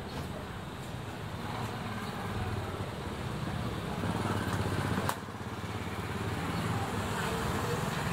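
Street traffic with motorbike engines running as a steady rumble, and one sharp slap about five seconds in, fitting the hand-pulled noodle dough striking the counter.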